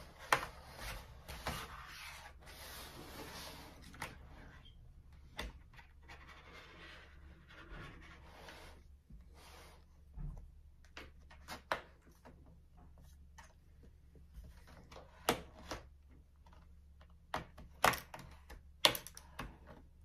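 Plastic pry tool scraping along the seam between a laptop's bottom panel and its chassis, with scattered sharp clicks and ticks as the tool and panel edge knock and catch, more of them near the end.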